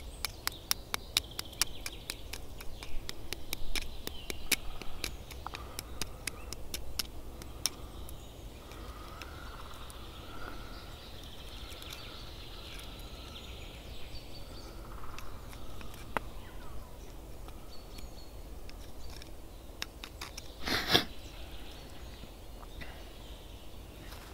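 Knife point tapping and picking at a raw egg's shell to chip a small hole in its top, a quick run of light clicks, several a second, that thins out after the first eight seconds or so. The hole is a vent so the egg can cook in the campfire ash without bursting. Faint birdsong behind, and a single louder rustle about 21 seconds in.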